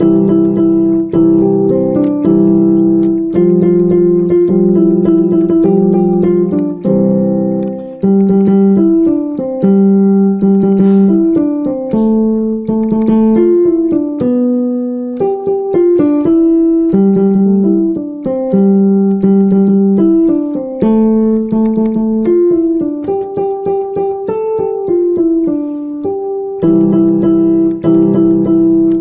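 Piano music: a simple melody of held notes stepping up and down over low chords, with the chords strongest at the start and near the end.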